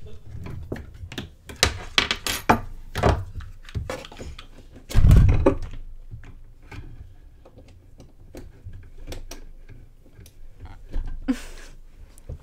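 Things being handled on a desk close to the microphone: a string of small clicks, taps and rustles, with one loud thump about five seconds in.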